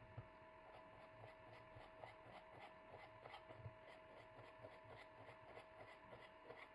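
Faint, quick taps and clicks of a kitchen knife cutting through a tomato onto a wooden cutting board, several a second, unevenly spaced.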